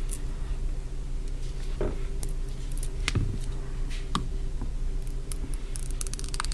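Scattered light clicks and taps from handling a phone and its plastic screen protector film, over a steady low hum.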